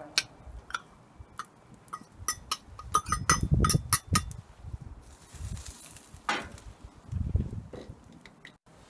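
Metal cookware clinking as a lid is handled on a small steel pot: a run of sharp clinks, thickest about two to four seconds in, followed by a few duller knocks.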